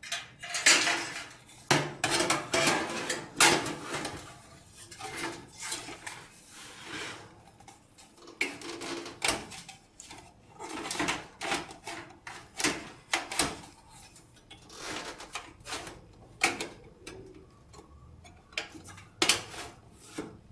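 A computer power supply unit being fitted into the back of a sheet-metal PC case: repeated metal knocks, clanks and scraping as it is pushed and shifted into place, with a quieter stretch near the end.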